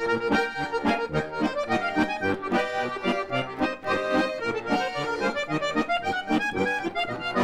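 Accordion playing a brisk, rhythmic instrumental introduction to a humorous folk song, with bass notes and chords alternating on the beat.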